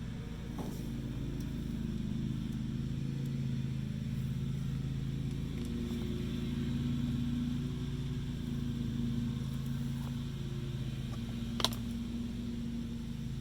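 A steady low mechanical hum, like a motor or engine running, with one sharp click or tap near the end.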